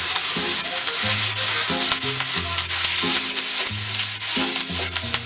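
Onions and spices frying in oil, sizzling steadily as they are stirred in the pot, over background music with a slow line of low notes.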